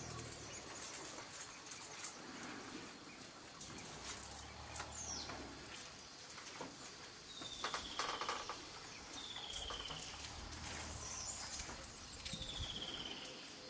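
Wild forest-clearing ambience: a bird gives a short falling whistle three times in the second half, over a steady high insect hiss, with a few low rumbles and scattered clicks and splashes.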